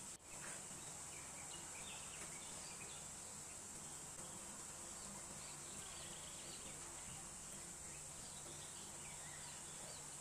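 Faint outdoor background: a steady high-pitched insect drone with scattered faint bird chirps.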